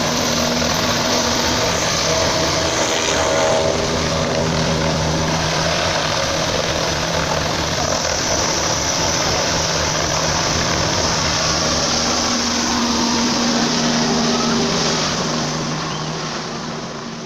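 Helicopter running at full power as it lifts off and climbs away: a loud, steady rotor and turbine noise with a few held tones, fading over the last couple of seconds.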